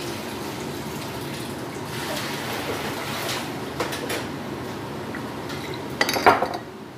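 Sauce bottles being poured over shrimp in a plastic bowl and handled on a kitchen counter: a few light knocks, then a louder clatter of bottle and bowl about six seconds in, over a steady background hiss.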